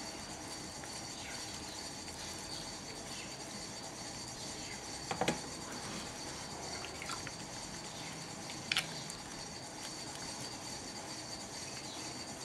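Wet hands rubbing a bar of handmade soap and working up lather over a glass bowl: soft wet rubbing and dripping, with two brief sharp sounds about five and nine seconds in.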